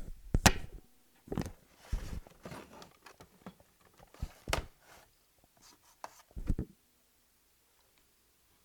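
Handling noise from an RCA CC439 VHS camcorder being turned over in the hands: an irregular run of knocks, clicks and rubs against its body for about six and a half seconds.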